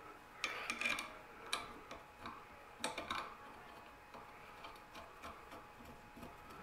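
Faint metallic clicks and taps of steel bolts and a cast-iron brake caliper being handled as the bolts are threaded by hand into freshly drilled and tapped holes in a VW front spindle. The clicks come in small clusters during the first three seconds, then thin out to a few faint ticks.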